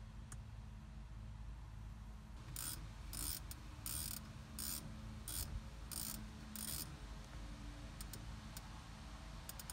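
Ratcheting clicks from an Audi MMI rotary control knob turned in quick flicks, about seven short bursts of detent clicks in a row, with a few single clicks near the end as the CarPlay menu list is scrolled.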